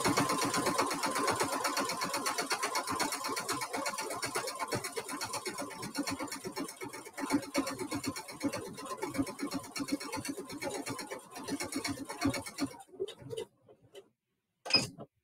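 Singer Heavy Duty 6800C computerized sewing machine stitching at speed, a steady run of rapid needle strokes that stops about 13 seconds in, followed by a few faint clicks.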